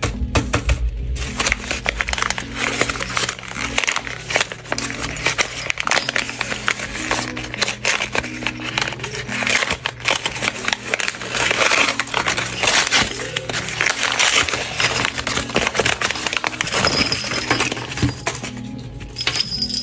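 Paper and plastic packaging crinkling and rustling in the hands, with many small irregular crackles and clicks, over soft background music with a simple repeating low melody.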